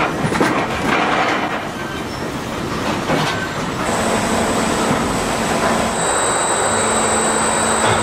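Sawmill machinery running loudly, clattering and knocking at first, then settling into a steady noise with a thin high whine from about four seconds in.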